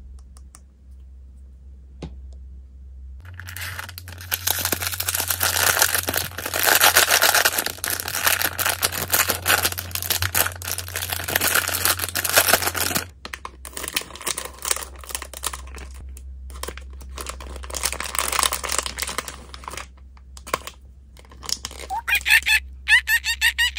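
Shiny foil toy wrapper crinkling and tearing as it is pulled open by hand: dense crackling for about ten seconds, then lighter crinkling as the packet is handled. A few faint handling clicks come first, and near the end a fast run of high, squeaky notes starts.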